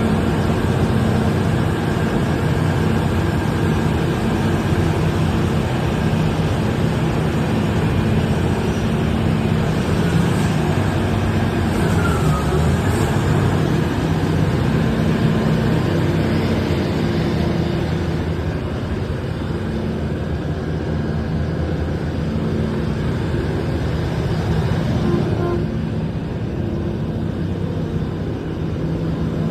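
Engine of a Terex RH340 mining excavator running steadily with a low, even engine note, easing slightly in loudness about two-thirds of the way through.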